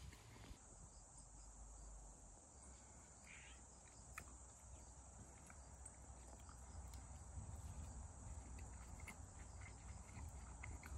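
Faint steady high-pitched chirring of insects such as crickets, starting about half a second in, with scattered faint ticks and a low rumble beneath.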